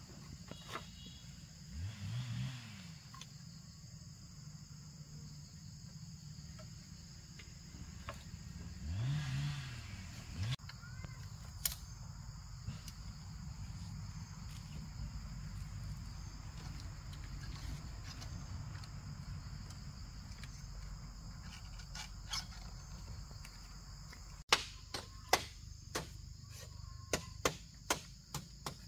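Steady forest insect drone, with a few creaks and scrapes from bamboo panels being handled. In the last few seconds, a quick run of sharp knocks from a hand tool striking the bamboo frame.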